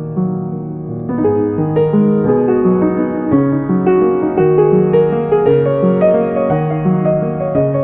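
Background piano music, a gentle melody over chords with notes changing about twice a second.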